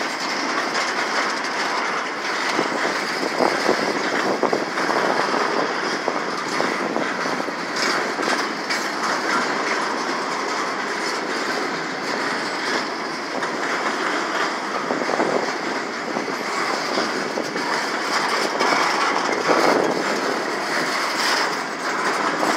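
Boxcars of a freight train rolling past close by: a steady noise of steel wheels on rail, with scattered clicks as the wheels cross rail joints.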